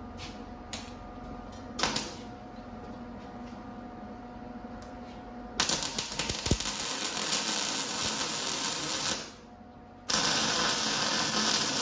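Welding arc crackling in two runs, about three and a half seconds and then about two and a half seconds, after a stretch of steady hum with a couple of clicks.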